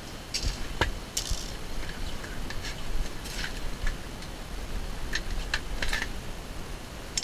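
Handling noise from gear being moved about: a string of small clicks, scrapes and light clinks, scattered irregularly, over a low rumble of the camera moving.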